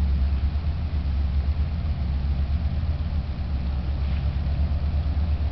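A lake freighter's engines making a steady low drone across the water, with a faint hiss above it.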